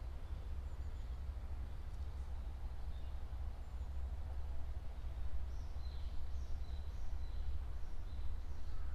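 Faint bird calls: short high chirps, a few early and more frequent in the second half, over a steady low rumble.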